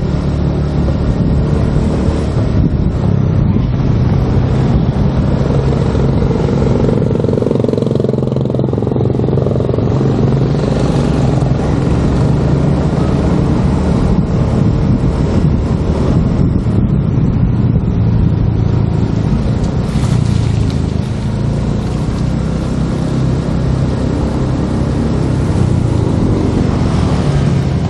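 Small motor scooter's engine running steadily while it is ridden along a road, a low drone with a rushing wind and road noise over it.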